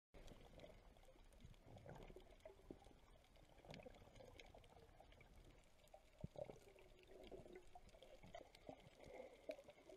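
Faint underwater sound: soft bubbling and gurgling with scattered small clicks, and one sharper pop about six seconds in.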